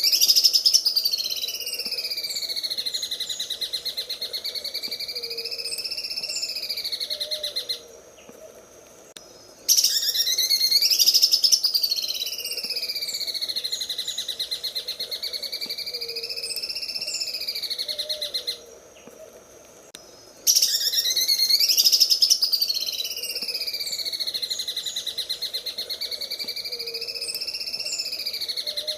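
Green leafbird (cucak ijo) singing its 'sewing machine' song: three long phrases of about eight seconds each, with short pauses between them. Each phrase opens with a loud rising burst and runs on as a very fast, machine-like rattling trill that slowly wavers up and down in pitch.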